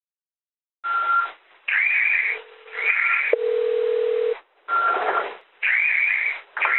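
Start of a recorded 911 emergency call over a telephone line. After a short silence come several short bursts of phone-line sound, and near the middle a steady tone lasts about a second.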